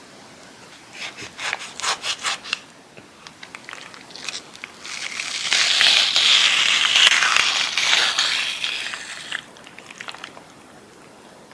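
A short run of quick scraping strokes, then several seconds of steady rubbing, the loudest part.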